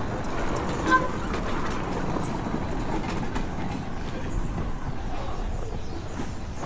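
Steady rolling rumble with a continuous light clatter, like wheels running over a rough surface, and a short pitched tone about a second in.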